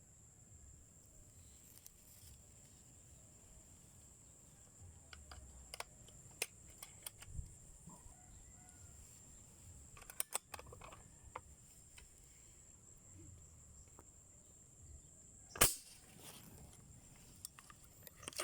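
A pump air rifle fires once, a single sharp crack near the end, preceded by a few faint clicks and ticks, over a steady faint high-pitched whine.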